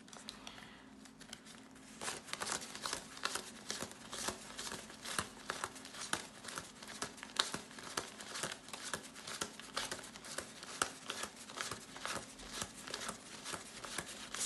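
Jamaican banknotes being counted by hand, note after note flicked off a thick stack in a quick, uneven run of crisp paper snaps that starts about two seconds in.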